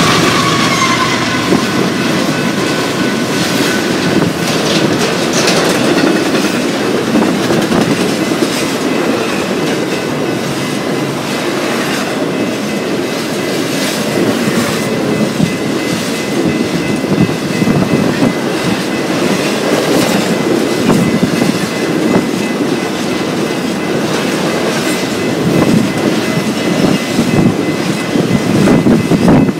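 A train's cars rolling past close by: a steady rumble with steel wheels clicking over rail joints. The tail of a horn blast, dropping in pitch, fades out about a second in.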